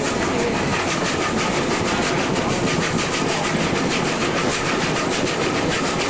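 Train running steadily with a small steam tank locomotive hauling an open passenger carriage: constant noise of the wheels on the rails and the running gear, heard from aboard the carriage.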